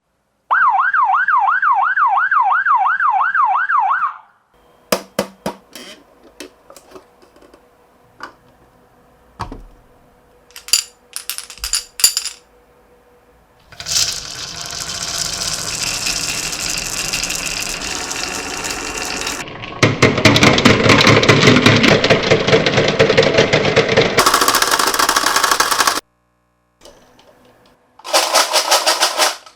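A toy ambulance's electronic siren warbles rapidly for about four seconds, followed by scattered clicks of marbles striking a marble run, then long stretches of dense rattling as many marbles roll and tumble down the track, louder in the second half, with a short final burst near the end.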